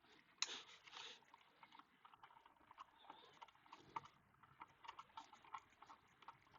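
Faint, irregular small clicks and taps of hard plastic and metal parts being handled, with a brief rustle about half a second in.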